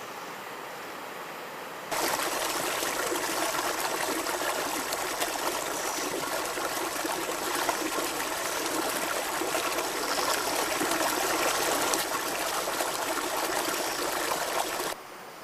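Waterfall: steady rushing, splashing water. It starts abruptly about two seconds in and cuts off just before the end.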